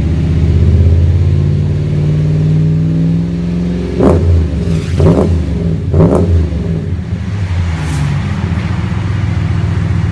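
Exhaust of a 2016 Dodge Ram's 5.7-litre Hemi V8 through a MagnaFlow straight-through, 1-in 2-out muffler with factory tips. It runs steadily at about 2000 rpm for three seconds or so, then takes three sharp revs about a second apart and settles back to a steady run.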